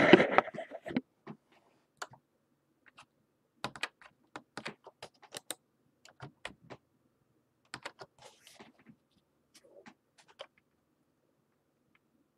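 Irregular, sharp clicks of a computer keyboard, a few a second with pauses, after a brief burst of noise in the first second.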